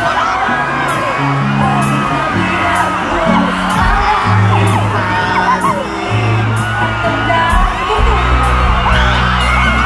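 A live pop song plays loud over a concert sound system, with a bass line, a drum beat and singing. Over it, a crowd whoops and shouts.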